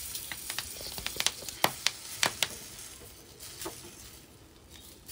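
Steel spatula clicking and tapping against a hot black griddle pan while banana-leaf parcels of wheat ada are turned over, a quick run of sharp clicks in the first couple of seconds and one more later. Faint sizzling from the parcels cooking on the pan beneath.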